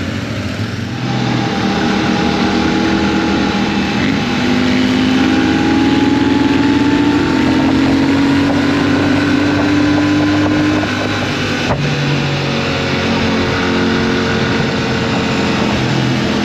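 Royal Enfield Shotgun 650's 648 cc parallel-twin engine pulling away and accelerating, its pitch climbing for several seconds, then a click and a drop in pitch near twelve seconds in before it runs on steadily. Wind rush is heard throughout on the onboard microphone.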